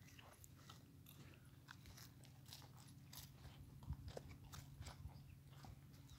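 Near silence: a faint low hum with scattered soft clicks and crackles.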